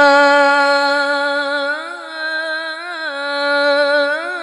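Male Qur'an reciter's voice, amplified through a microphone, holding one long high note of melodic recitation (tilawah). The note stays steady for nearly two seconds, then breaks into small wavering ornamental turns.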